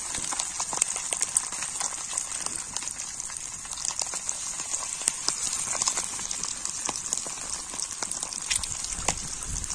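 Indian mackerel frying in shallow oil on a flat pan over a wood fire: a steady sizzle with many small crackling pops. A low rumble comes in near the end.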